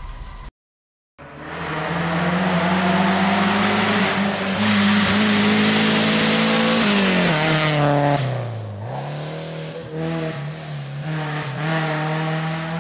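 A snatch of music cuts off, and after a moment of silence a racing car engine runs at high, steady revs with a rushing noise over it. About seven seconds in the revs drop, then settle at a lower steady pitch.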